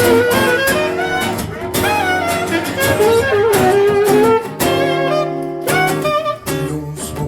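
Recorded instrumental music: a gliding melodic lead over sustained bass notes and a drum beat.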